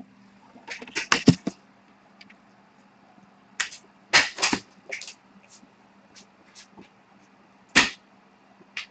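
Scattered sharp clicks and taps of objects being handled on a tabletop, in a quick cluster about a second in, another around four to five seconds in, and a single louder knock near the end, over a faint steady hum.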